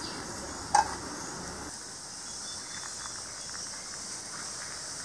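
Masala-coated cauliflower pieces deep-frying in hot oil in a kadai, a steady sizzle. A single sharp knock sounds about a second in.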